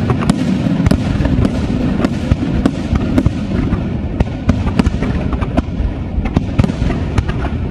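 Aerial fireworks going off in a continuous barrage: sharp shell bursts, several a second and irregularly spaced, over a steady loud rumble.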